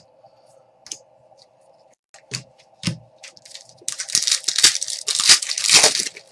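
Foil trading-card pack wrapper being torn open and crinkled in the hands, loud for about two seconds from a little past halfway. Before it come a few light clicks of cards being handled.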